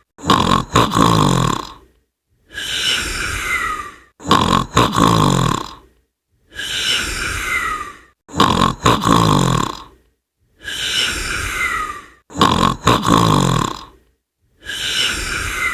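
Loud snoring from a congested, stuffed-up nose. The same snore repeats evenly about every four seconds: a hissing breath with a falling nasal whistle, then a rattling snore. About four of these come in a row.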